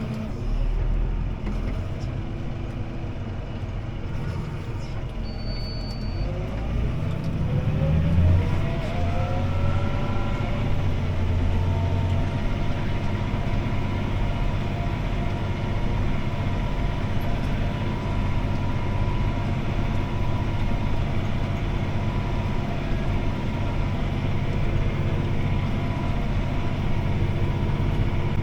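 CLAAS Arion 650 tractor's six-cylinder diesel engine heard from inside the cab, running under load: its pitch climbs as the revs rise over several seconds, about a quarter of the way in, then holds steady.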